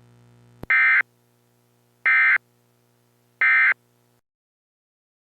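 Three short bursts of Emergency Alert System SAME data tones, the end-of-message signal that closes an EAS broadcast. Each burst lasts about a third of a second, and they come about a second and a half apart.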